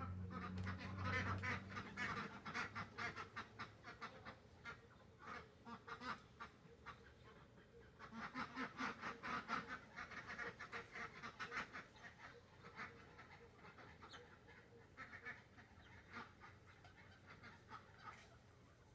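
A pet bird calling in rapid runs of short, repeated notes, in several bouts with short pauses between.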